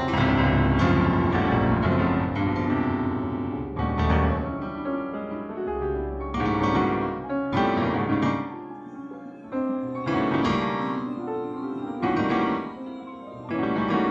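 Solo piano music: notes and chords struck at an uneven, unhurried pace, each ringing and fading away. Deep bass notes sound under the first half and drop out after that.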